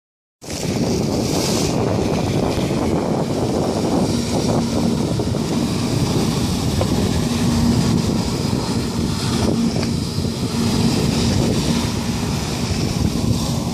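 Wind buffeting the microphone over the steady running of a watercraft engine and rushing water, starting about half a second in, with a faint engine hum that fades in and out.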